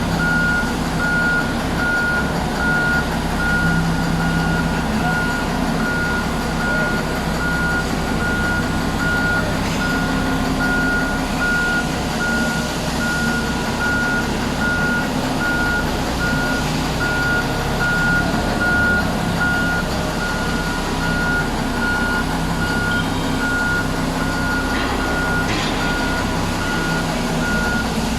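Komatsu HD785-7 haul truck's V12 diesel engine running heavily, with its reversing alarm beeping steadily over the rumble. The engine has a knock that is causing the black smoke and loss of power.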